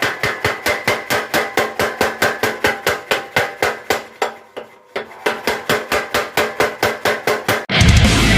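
Mechanical blacksmith's power hammer striking metal in a fast, even rhythm of about four blows a second, pausing briefly about halfway before resuming. Loud rock music cuts in near the end.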